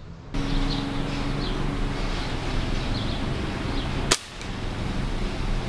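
A single sharp crack of an air rifle (pellet gun) firing, about four seconds in, over steady outdoor background noise.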